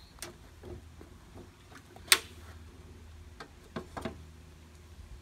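Hinged side flip-up shelf on a metal equipment cart being raised into place: light clicks, one sharp clack about two seconds in, then two more knocks near four seconds.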